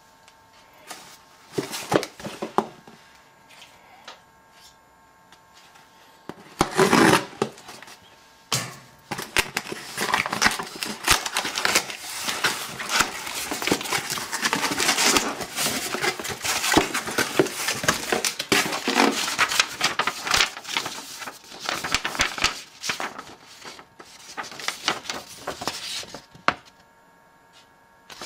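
Hands handling and opening a cardboard shipping box: a few light knocks, a loud scrape about seven seconds in, then a long dense stretch of cardboard crackling, scraping and tearing as the flaps are worked open, going quiet near the end.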